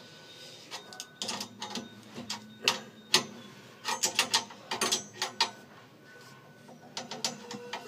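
Brass compression nut on a copper tap connector being tightened with hand tools: scattered sharp metallic clicks and ticks in short clusters as the wrench is reset and worked against the nut in short strokes.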